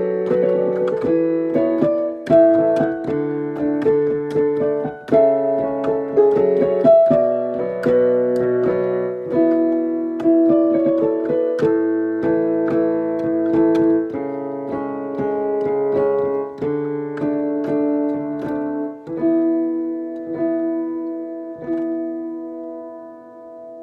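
Piano played slowly, with sustained chords under a melody line. The playing settles onto a final held chord that dies away near the end.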